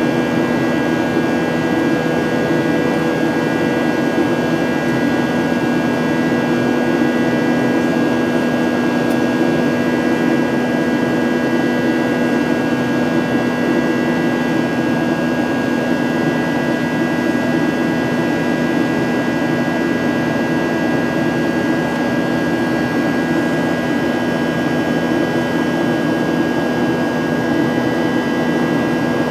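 Boeing 737-900ER's CFM56-7B jet engines and airflow heard from inside the cabin: a steady drone with several constant tones that holds unchanged throughout.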